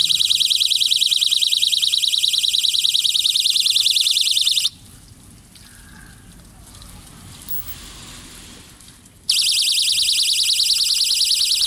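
Solar-powered ultrasonic animal repeller sounding a loud, rapidly pulsing high-pitched electronic alarm tone from its speakers. It cuts out for about four and a half seconds midway, leaving only faint background noise, then starts again.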